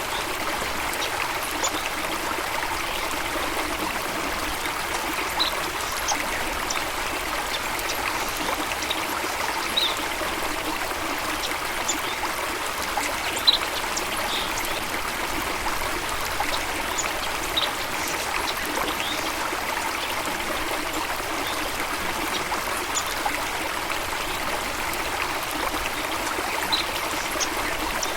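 Running stream water, a steady trickling and babbling rush. Short, faint high chirps or ticks are scattered through it, with one sharper tick about halfway through.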